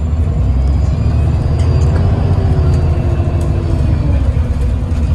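Yutong ZK6126HG city bus heard from inside the passenger cabin while driving: a steady, heavy low rumble of engine and road noise.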